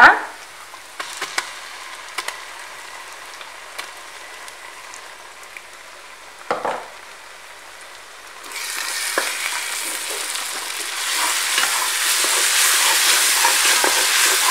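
Sliced onions frying in hot sesame oil in a pressure cooker with a gentle sizzle and small clicks. About eight seconds in, wet ground masala paste goes into the oil and the sizzle turns much louder as it is stirred through.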